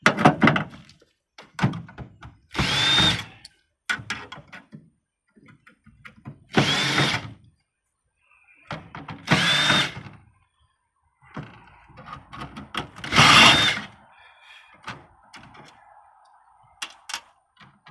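Handheld power drill or driver run in four short bursts, each whine spinning up and winding down, with clicks and knocks of handling between.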